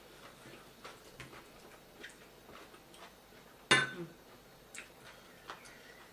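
Eating at a table: scattered small clicks of cutlery and mouth sounds, with one sharp clink of a utensil against a plate, ringing briefly, about three and a half seconds in.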